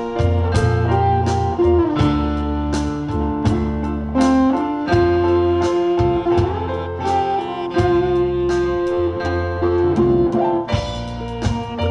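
A live instrumental combo band of drum kit, bass guitar, keyboard and lead instrument playing a steady-beat pop tune. The lead carries a held melody with bent, sliding notes.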